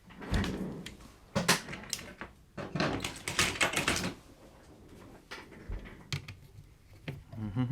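Tripod hardware being handled and fitted together: irregular clicking and clattering of the bolt, nut and metal parts, busiest in the first four seconds and then a few scattered ticks.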